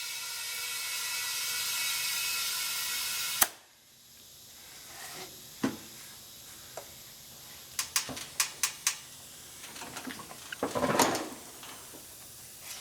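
Compressed air hissing steadily into a Cub Cadet XT1 riding mower tire, with a faint whistle, to inflate the leaking tire; it cuts off with a sharp click about three and a half seconds in. Then scattered light clicks and taps follow.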